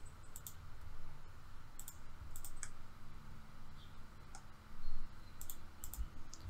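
Computer mouse buttons clicking a few times, some clicks in quick pairs, over a faint low hum.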